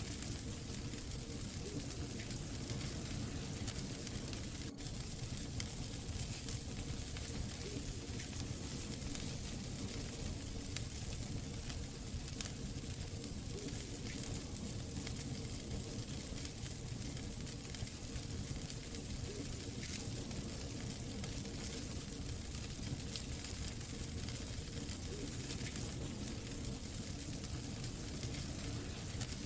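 Wood fire burning in a fireplace: a steady hiss of flames with frequent small crackles and pops from the logs.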